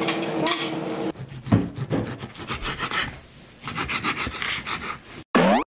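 Knife sawing through a pan-seared steak on a wooden cutting board: rapid rasping strokes. Near the end a short, loud added sound effect cuts in.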